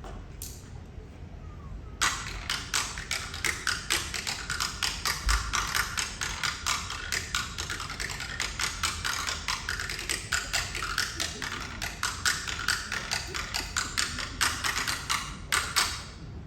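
Tap shoes striking a stage floor in a fast, rhythmic tap-dance routine. The taps start about two seconds in and stop suddenly near the end.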